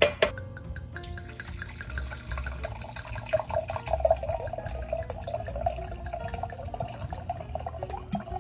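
Red wine poured from a bottle into a stemless glass held in the hand, a steady stream of liquid for about seven seconds, after a short click at the start.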